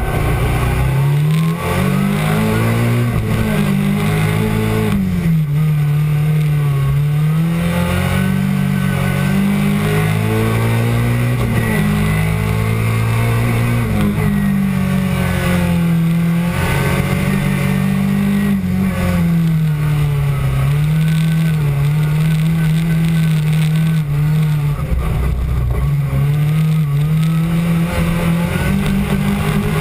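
Rally car engine heard from inside the cabin, its revs climbing and dropping over and over as the car is driven hard around the circuit.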